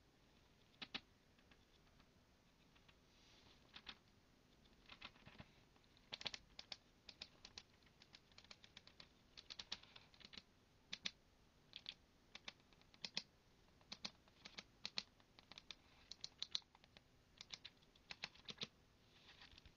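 Faint, quick crackles and ticks of thin Bible pages being handled and turned, sparse at first and then coming in dense clusters from a few seconds in.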